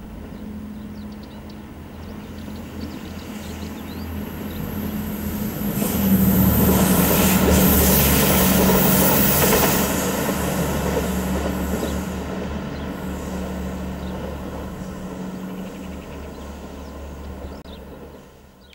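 MAN 2000 diesel-hydraulic railcar passing: a steady engine drone with low rumble and wheel-on-rail noise that builds up, peaks about six to ten seconds in, then slowly fades away.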